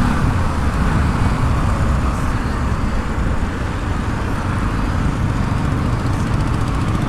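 Bajaj Pulsar NS200 motorcycle cruising on a highway: steady engine and road noise under a wind rush on the microphone.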